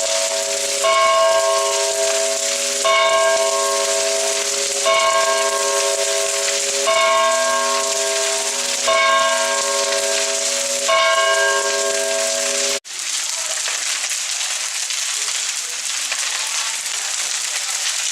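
Church bell striking once about every two seconds, each stroke ringing on into the next; six strokes, then the sound cuts off abruptly about two-thirds of the way through. A steady hiss with crackling follows.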